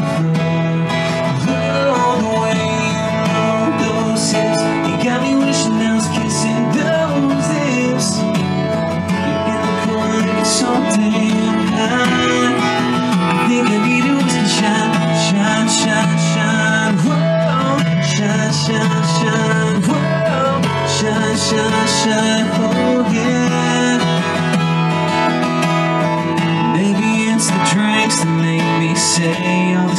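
A man singing a country song, accompanying himself on a strummed acoustic guitar.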